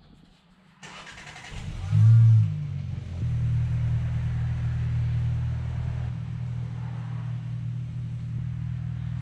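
Car engine starting about two seconds in with a brief loud burst, then running steadily at low revs as it tows a small teardrop camper trailer out of a garage.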